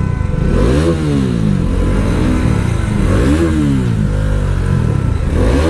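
Motorcycle engine being revved up and down repeatedly, its pitch climbing and dropping three times in a few seconds.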